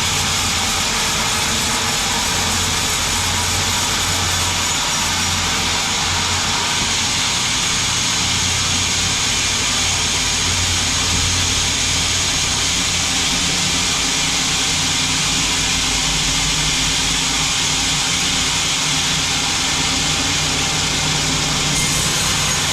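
Sawmill machinery running steadily, a constant, unbroken machine noise.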